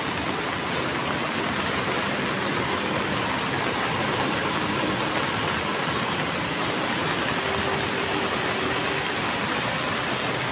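Muddy flash-flood water rushing past in a swollen torrent after a cloudburst, a steady heavy rush of water noise.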